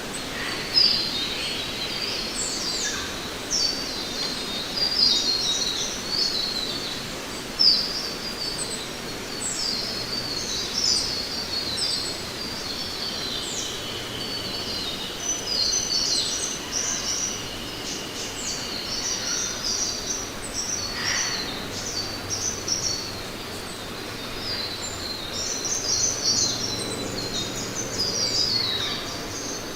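Forest ambience: many birds chirping with short, high calls throughout over a steady background hiss. In the middle, one long even-pitched call or trill holds for about seven seconds.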